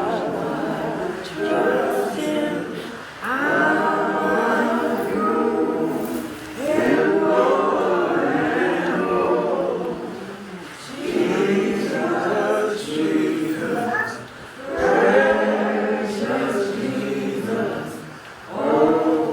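A group of voices singing a hymn without accompaniment, in sung phrases of about three seconds, each followed by a short breath.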